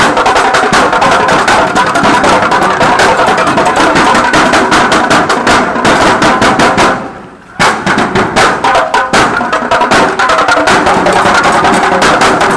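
Drill team drumline of snare, bass drum and bucket drum playing a loud, fast, dense beat with rapid rolls. It breaks off for about half a second a little past the middle, then starts again.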